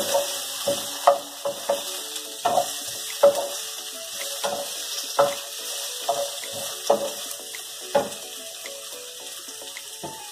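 Pork with garlic and onion sizzling in a frying pan, with a wooden spoon knocking and scraping against the pan as it is stirred. The knocks come every half second to a second and stop a couple of seconds before the end, leaving the steady sizzle.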